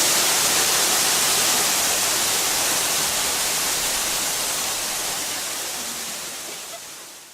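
Steady rushing hiss, fading out over the last two seconds.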